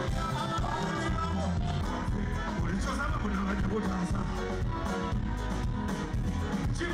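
Live band playing upbeat music on bass guitar, keyboard and horns, with a steady repeating bass line.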